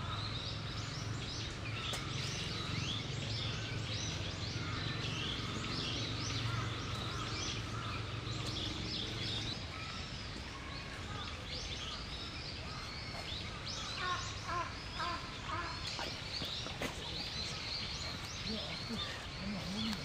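Outdoor bird chorus: many short, high chirps and twitters from small birds, over a low steady hum that fades about halfway through.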